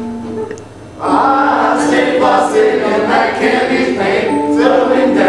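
Mixed choir of men and women singing together; after a held chord fades and a brief lull, the full group comes in loudly about a second in.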